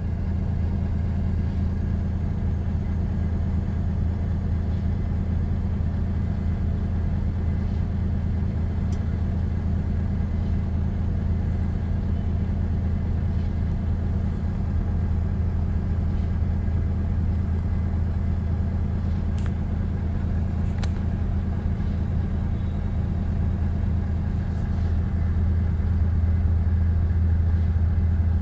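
Large engine running steadily at idle with a constant low hum, getting a little louder over the last few seconds.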